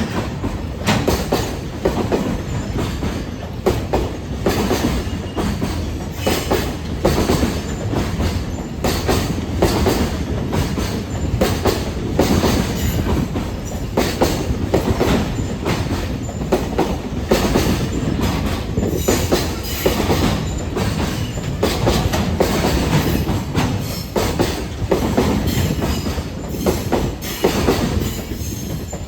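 Freight train wagons passing at speed, their wheels clicking steadily over rail joints in a rapid, continuous clickety-clack over a rolling rumble.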